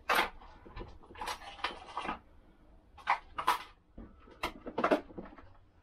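A scattered series of short rustles and clicks: small parts being rummaged through by hand for a replacement brake-shoe retaining clip.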